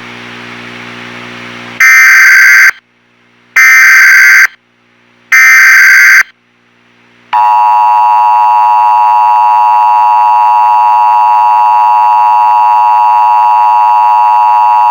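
Emergency Alert System tones: a low steady buzz, then three very loud electronic data-burst screeches of about a second each with short pauses (the SAME header), then the two-tone EAS attention signal sounding steadily from about seven seconds in.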